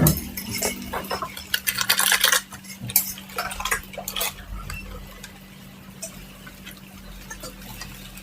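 Metal utensils clinking and scraping against a pan or griddle as food is stirred, busy for the first two and a half seconds and then only a few light clicks, over a steady low hum.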